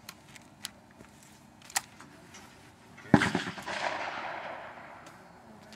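A single shotgun shot about three seconds in, with a long echoing tail that fades over nearly two seconds. A few light clicks come before it.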